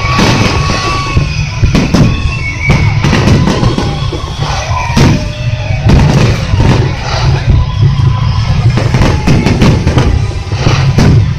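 Aerial fireworks shells bursting in quick succession during the climax barrage: a dense run of sharp bangs, several a second, over a continuous low rumble.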